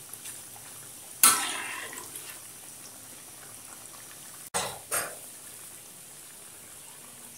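Sweet-potato donuts deep-frying in hot oil in a wok: a steady sizzle. A spatula stirs through the oil about a second in and twice more around the middle, briefly louder.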